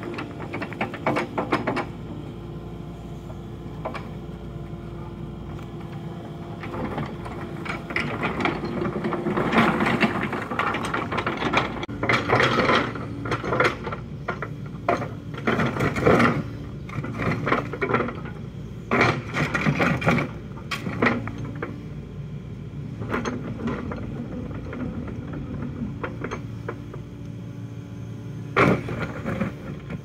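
Compact excavator's diesel engine running steadily while its steel bucket scrapes and clatters against rocks, setting stones along a gravel driveway edge. The grinding and clattering comes in a run of bursts through the middle and once more near the end.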